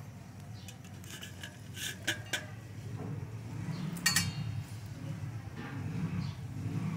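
Wet eggplants being set down on a stainless steel plate: a few light knocks and clinks against the metal, the loudest about four seconds in with a short metallic ring. A steady low hum runs underneath.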